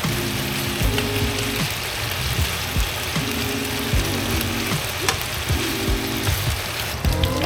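Food sizzling and frying in a pan, a steady hiss, under background music with short held chords and a regular clicking beat.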